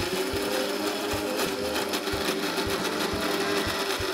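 Electric mixer grinder running steadily with a motor whine, its blades grinding soaked urad and moong dal with minimal water into a thick batter.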